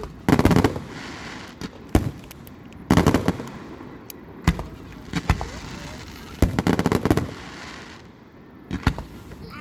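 Aerial fireworks bursting: about seven sharp bangs and dense bursts of crackling, spaced a second or so apart.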